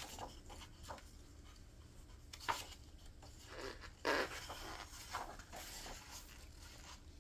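Gloved hands handling and turning a page of a hardcover yearbook: soft paper rustles and brushing, with the fullest rustle about four seconds in as the page turns over.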